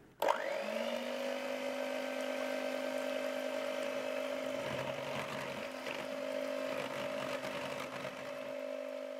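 Electric hand mixer switched on just after the start, its motor whine rising briefly as it spins up and then running steadily as the beaters whisk a thin liquid mix of milk, egg yolk, sugar and starch in a plastic bowl.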